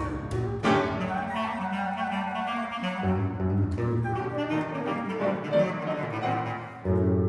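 Contemporary chamber music played by a quintet of flute, clarinet, electric guitar, piano and acoustic bass, with busy overlapping lines. A loud, held low bass note comes in near the end.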